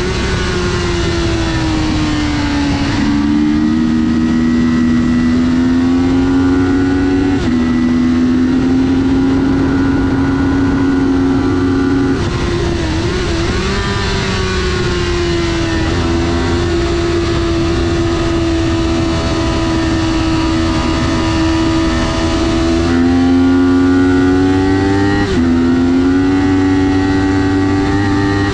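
Kawasaki Ninja 400 parallel-twin engine running hard on a race track. Its pitch sags and climbs through corners and steps abruptly several times with gear changes.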